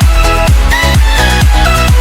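Electronic dance music with a steady four-on-the-floor kick drum, about two beats a second, under synth chords.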